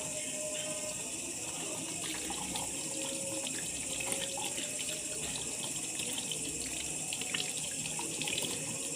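Tap water running steadily into a sink while hands are washed under it.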